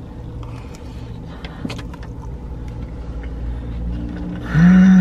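Eating sounds: soft chewing and fork clicks over a steady low rumble inside a car. Near the end comes a loud closed-mouth "mmm" of enjoyment from the eater, about half a second long, rising and falling slightly in pitch.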